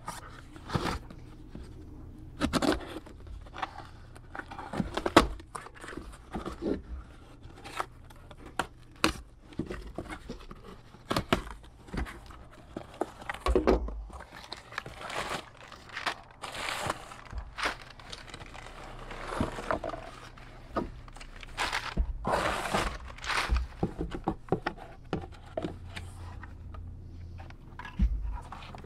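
Cardboard mail package being opened by hand: tape and cardboard tearing, paper crinkling and scraping, with many small knocks and clicks and a few longer rips.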